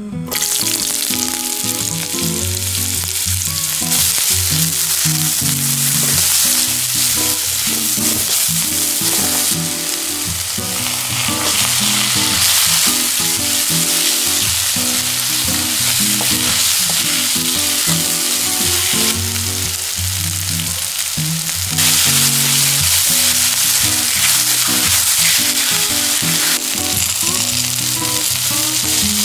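Sliced onion and wheat rice cakes (tteok) sizzling loudly as they are stir-fried in hot olive oil in a non-stick pan, with butter melting in near the end. The sizzle starts suddenly as the onion hits the oil, over quiet background music.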